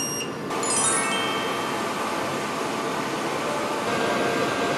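An OHCHEF automatic ramen cooker beeps as its start button is pressed, then plays a short electronic chime of a few descending notes. Hot water then pours steadily into the paper ramen bowl with an even rushing sound.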